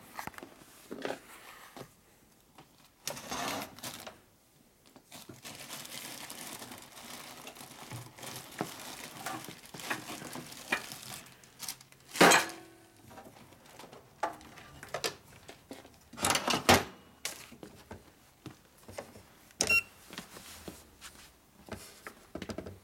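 Rummaging on a cluttered workshop bench and shelf: shuffling and rustling with scattered clatters and sharp knocks, the loudest about twelve seconds in and again around seventeen seconds, ending with a small digital scale being set down on the bench.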